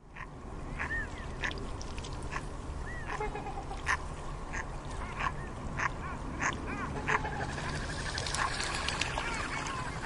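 Short animal calls, one or two a second, with a steady low rumble underneath; they grow denser near the end.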